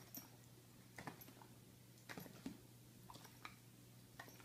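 Near silence: faint room tone with a steady low hum and a few soft, scattered clicks.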